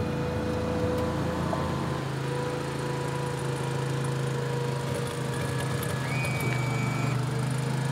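An amphibious ferry's engine runs steadily with a low hum as the boat drives on its wheels down a concrete slipway into the water. The engine note shifts slightly about six and a half seconds in.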